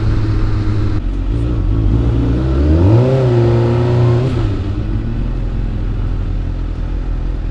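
2004 Suzuki GSX-R600's inline-four engine running under way over wind noise, rising in pitch about three seconds in, holding briefly, then dropping back a second later.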